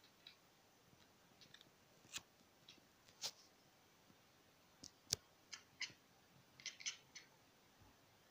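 A cat chattering faintly: scattered short, sharp clicks, with a quick run of several together a little under three quarters of the way through.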